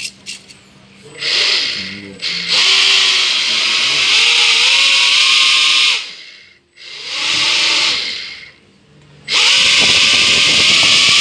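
Homemade RC boat's electric ducted fan thruster run up from the radio in several bursts: a loud whirring whine with a rush of air, rising in pitch as each run speeds up, with short pauses between runs.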